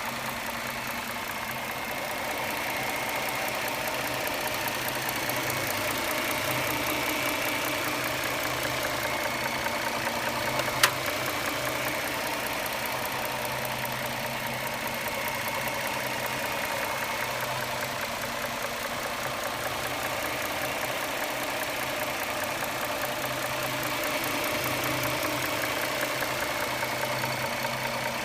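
2009 Dodge Charger's 3.5L V6 engine idling with a fast, even ticking. A single sharp ping comes about eleven seconds in.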